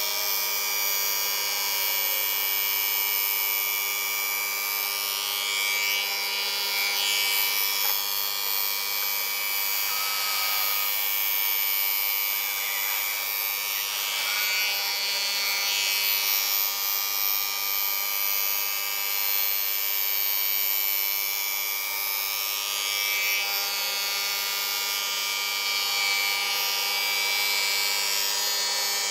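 The spindle and face-milling cutter of a Rottler F65 CNC machine running steadily as it mills the deck surface of an aluminum LS1 V8 block. The sound is a continuous high machine whine made of several held tones.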